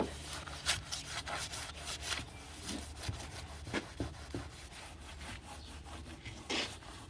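Paper towel scrubbing a car's dashboard in irregular rubbing strokes, a few of them sharper and louder, over a steady low hum.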